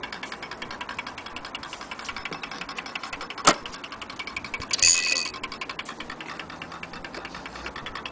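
Antique mantel clock ticking fast and evenly, with one sharp click about three and a half seconds in and a brief metallic ring about a second later.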